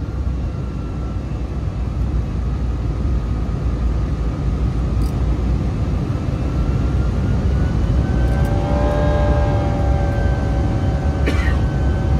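IAE V2500-series turbofans of an Airbus A319, heard from the cabin in the climb: a steady low drone with several whining tones over it. About halfway the thrust is increased, and the drone grows louder as a cluster of buzzing tones comes in and slides in pitch, the engines' "symphony".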